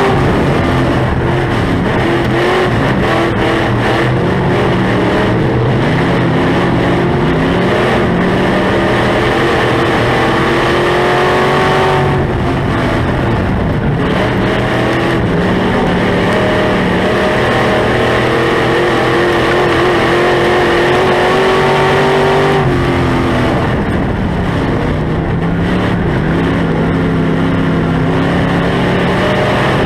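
Sport modified dirt-track race car's V8 engine at racing speed, heard from inside the car. Its revs climb steadily, drop sharply twice (about twelve and twenty-three seconds in) as the throttle comes off for the turns, and climb again.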